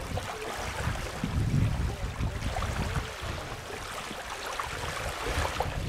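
Wind buffeting the microphone in irregular gusts, over small waves lapping on open water.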